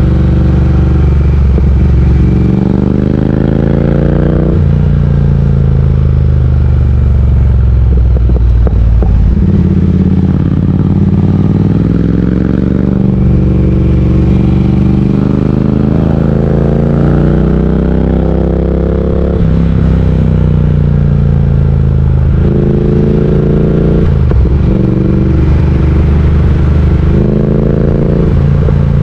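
Triumph Speed Twin 1200's parallel-twin engine running under way on the motorcycle. Its pitch climbs, then drops back several times as the throttle is worked through the ride.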